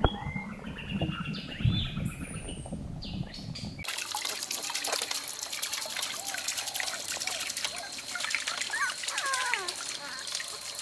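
Water trickling, with high chirping calls over it. About four seconds in the sound changes suddenly to a brighter, crackling trickle, with a steady high tone and more frequent chirps.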